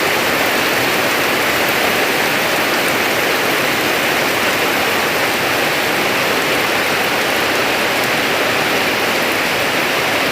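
Steady rain falling: a loud, even hiss with no let-up.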